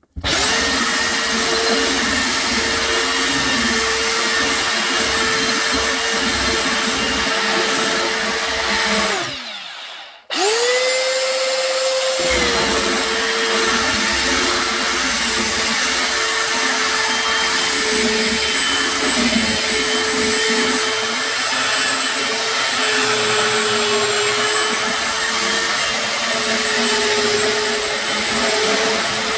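Electric sander running on the wooden tabletop with a steady motor whine. About nine seconds in it is switched off and spins down, then about a second later it is started again, the whine rising briefly before settling, and it runs on steadily, its pitch dipping slightly now and then under load.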